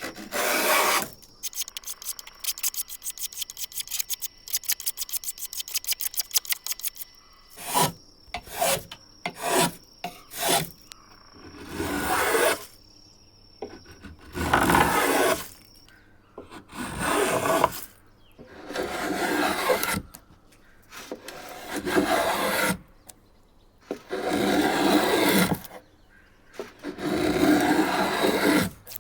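A hand tool scraping along a wooden handle being shaped: first a quick run of short rapid strokes, then long, even strokes about every two and a half seconds.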